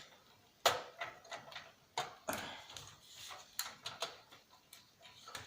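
Irregular clicks and knocks of the TV's plastic casing and circuit board being handled and prodded during disassembly, a sharp tap every second or so, the loudest about two-thirds of a second in.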